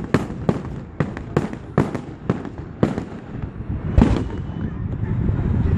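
Fireworks going off in a rapid string of sharp bangs, about two a second, with a heavier bang about four seconds in.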